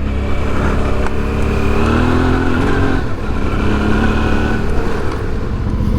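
Suzuki V-Strom 650's V-twin engine with an aftermarket Delkevic exhaust pulling under throttle, heard from inside the rider's helmet. Its pitch rises over the first couple of seconds, drops back about three seconds in, then holds steady.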